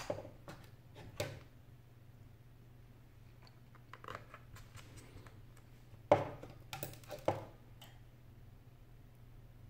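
Samsung Galaxy Note 10.1 (N8000) tablet's plastic casing being handled and pressed on a wooden desk: scattered light clicks and taps, with a sharp knock about six seconds in followed by a few more clicks.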